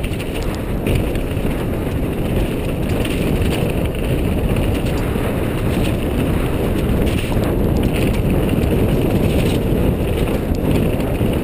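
Mountain bike descending fast over a rocky, wet trail: a steady rumble of tyres on stone and wind buffeting the helmet camera's microphone, with scattered knocks and rattles as the bike hits rocks.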